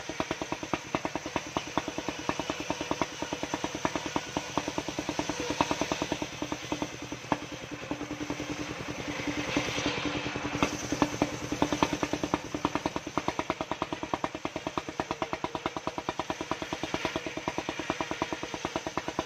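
Portable circular-saw sawmill running: its engine chugs in a rapid, even beat while the big blade rips a log lengthways. The hiss of the blade in the wood is loudest about halfway through.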